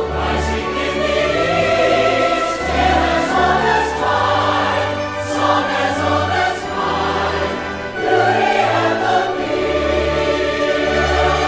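Music with choral singing over an orchestral backing and a deep bass line that changes note every second or so.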